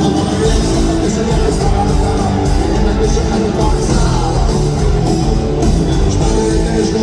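Live rock band playing loudly: distorted guitars, bass and drums, with cymbal hits keeping a steady beat.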